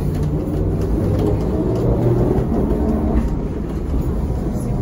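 Cabin of a ZiU-682G trolleybus under way: a steady low rumble from the body and running gear, with a humming undertone.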